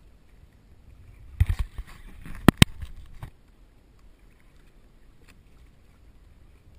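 Low water and wind noise around a plastic sit-on-top kayak, broken about a second and a half in by a cluster of loud knocks, then two sharp clicks a second later, as the angler handles the rod and reel on the hull.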